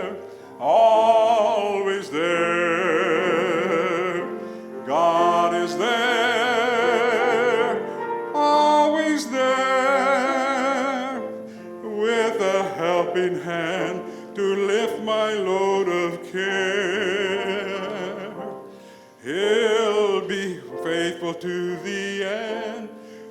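A solo singer sings slow sacred song phrases with strong vibrato over sustained instrumental accompaniment, pausing briefly between phrases.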